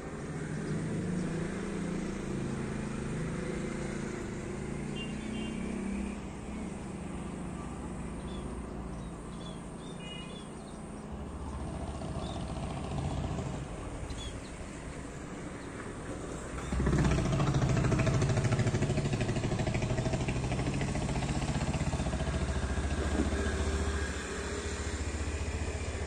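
Motor vehicle engine noise running underneath, much louder for several seconds from about two-thirds of the way in as a vehicle passes close. A few faint, short high chirps early on.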